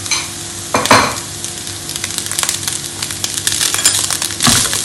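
Diced vegetables and boiled rice sizzling in oil in a frying pan, with a wooden spatula stirring and scraping against the pan, loudest about a second in and again near the end.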